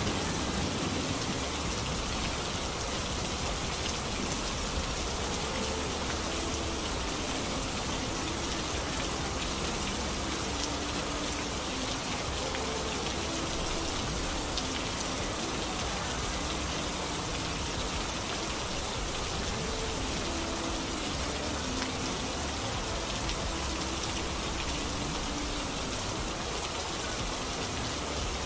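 Steady heavy rainfall, an even hiss of rain that holds at one level throughout. Faint short tones come and go underneath it.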